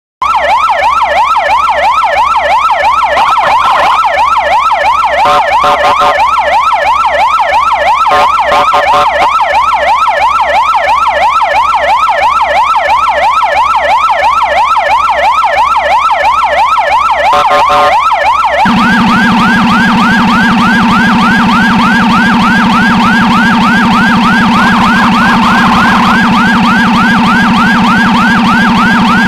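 Electronic emergency-vehicle siren in a rapid yelp, sweeping up and down about three times a second. About two-thirds of the way through it switches to a slightly higher, faster yelp over a steady low hum.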